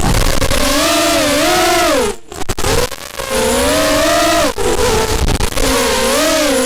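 Brushless motors and propellers of a small FPV racing quadcopter (Cobra 2204 2300KV motors, 5-inch bullnose props) whining, the pitch rising and falling as the throttle changes. The sound drops away sharply for a moment about two seconds in, dips again around three seconds, and comes back.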